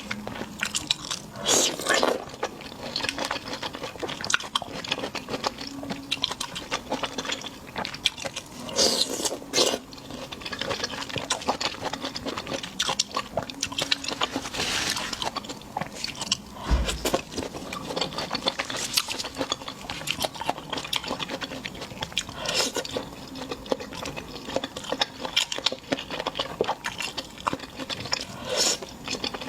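Close-miked ASMR eating: crunchy food being bitten and chewed, a dense run of crackling crunches with a few louder bites.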